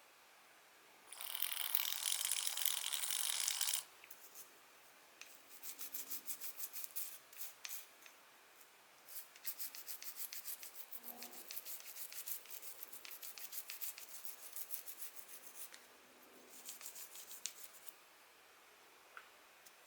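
Rubbing and scraping on small fishing-reel parts being cleaned. A dense hiss lasts about three seconds, then come several runs of rapid scratchy ticks.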